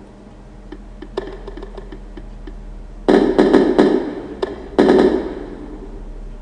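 Fireworks going off: a few faint crackles about a second in, then a quick run of about five loud bangs around three seconds and one more big bang near five seconds, each trailing off in an echo.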